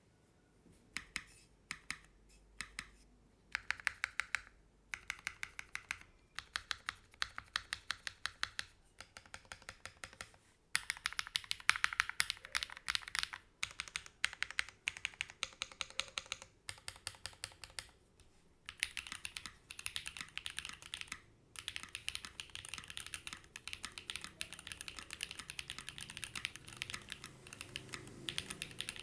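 Typing on a Techbear80 (TB8) mechanical keyboard with Gateron Slay Type A switches and ePBT Origami keycaps. It starts with a few separate keystrokes, then bursts of typing split by short pauses, and about two-thirds of the way through it turns into fast continuous typing.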